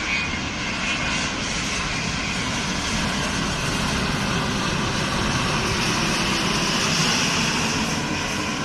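Jet engines of a Boeing 787-9 airliner on landing approach, passing close by: a steady rushing engine noise that grows louder, peaks about seven seconds in, then begins to fade.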